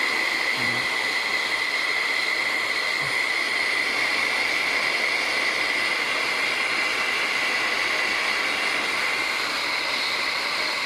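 A 700-watt hot-air plastic welding gun running steadily: its fan blows with a constant high whine over a rushing hiss, heating shrink tube over a wire joint.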